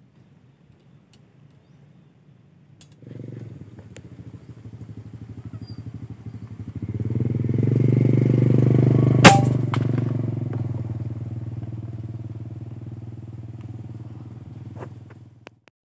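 A motorcycle engine running. It starts abruptly about three seconds in, grows louder to a peak near the middle, then fades and cuts off near the end. One sharp, loud crack stands out about nine seconds in.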